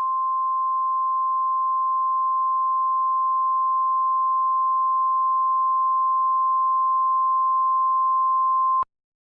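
Emergency Alert System attention signal: a single steady pure tone near 1 kHz, the 1050 Hz warning tone used by NOAA Weather Radio, held for several seconds and cutting off abruptly shortly before the end. It marks the start of an emergency alert, just before the spoken message.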